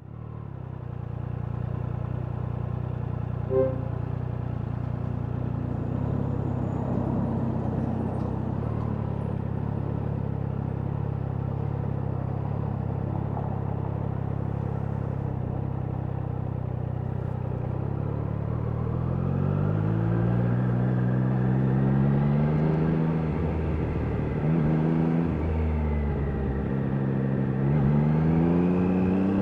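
Triumph Daytona 660's inline three-cylinder engine running steadily, then revving through several rising and falling sweeps in pitch from about two-thirds of the way in, as when accelerating and shifting gears. A brief short tone sounds about three and a half seconds in.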